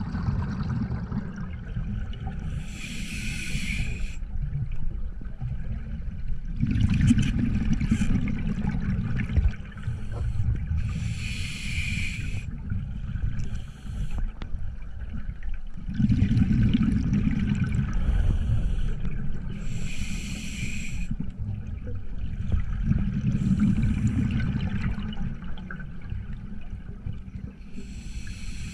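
Scuba diver breathing through a regulator underwater: a short hiss from the regulator on each inhale, about every eight or nine seconds, alternating with a low bubbling rumble of exhaled air.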